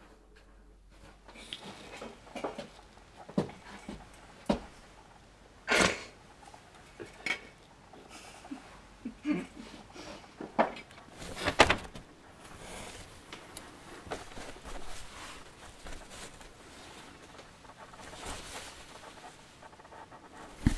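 Rummaging through papers, folders and picture frames: soft rustling of paper and cloth with irregular clattering knocks of boards and frames, the loudest about six seconds in and just before halfway.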